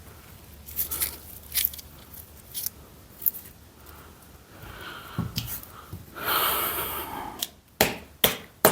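Dry coconut husk fibres being pulled and scraped off the shell: short scratchy rips and clicks, with a longer rasping tear about six seconds in. A few sharp knocks come near the end.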